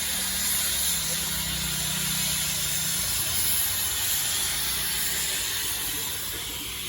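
Darjeeling Himalayan Railway toy train running: a steady hiss over a low rumble, with a faint low hum in the first half that fades out.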